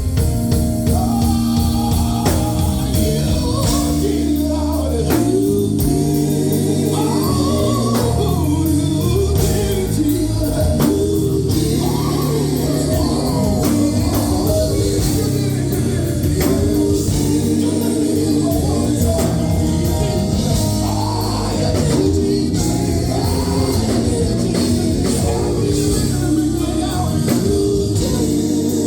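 Live gospel group singing with a band: a sung lead voice over steady bass notes and a drum beat.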